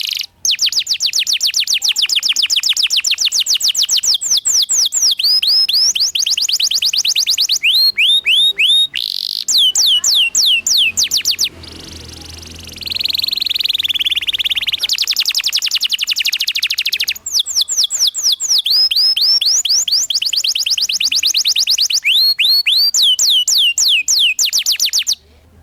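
Domestic canary singing long rolling trills of rapid, evenly repeated downward-sweeping notes, broken by brief pauses, with a harsher buzzing passage in the middle.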